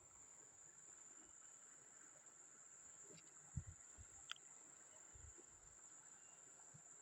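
Near silence: a faint steady high hiss with a couple of soft low thumps and a brief click a little past the middle.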